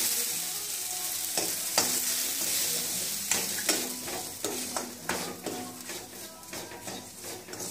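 Chopped onion, tomato, chilli and curry leaves sizzling in hot oil in a metal kadai, with a metal spatula scraping and clicking against the pan, then semolina poured in by hand. The sizzle fades gradually toward the end as the rava covers the oil.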